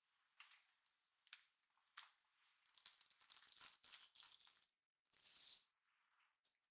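Long hair rustling as it is handled, twisted and gathered up by hand, in several soft hissing bursts, the longest lasting about two seconds, with a couple of light clicks in the first two seconds.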